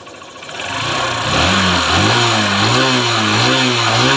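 Honda Shine's freshly rebuilt 125 cc single-cylinder four-stroke engine revving. It builds up about a second in, then is blipped up and down repeatedly with the throttle, running smoothly.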